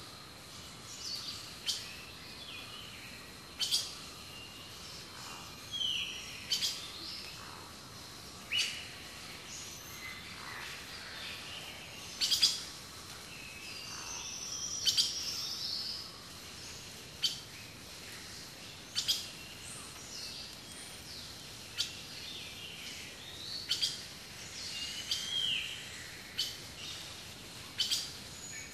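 Wild birds chirping and calling: a mix of short, sharp high chirps every second or two and some whistled gliding notes, over a faint steady hiss.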